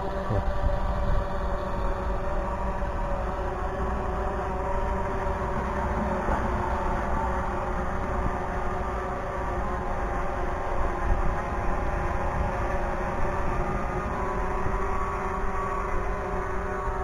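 Steady hum of drone propellers in flight, several tones held level throughout, over wind rumbling on the microphone.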